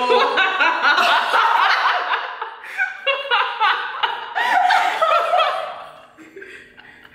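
Three women laughing together, several voices overlapping, dying down over the last couple of seconds.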